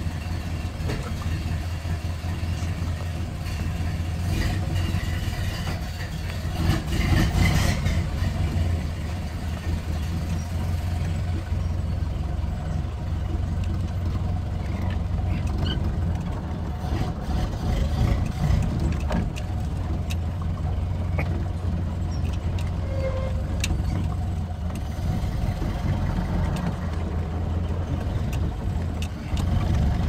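1929 Ford Model A's four-cylinder flathead engine running steadily, heard from inside the cab as the car pulls out and drives slowly, with a louder spell about seven seconds in.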